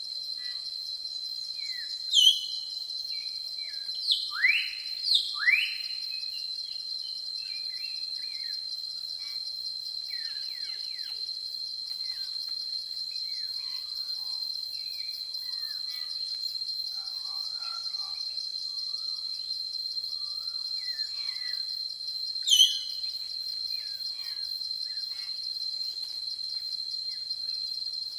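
Steady, high, unbroken insect drone of crickets or similar jungle insects, with birds calling over it: a few loud sweeping whistles about two, four and a half and five and a half seconds in and again near the end, and faint scattered chirps in between.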